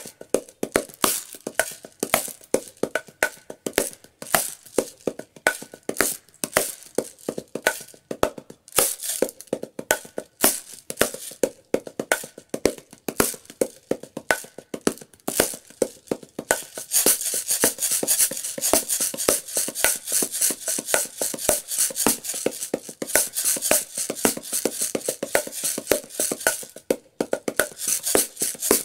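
Kandu Clever Shaker, a small wooden hand-percussion box, played in a quick rhythm of sharp clave-like and drum-like wooden hits. A little past halfway the playing turns denser and brighter, with a steadier hiss of rapid strokes.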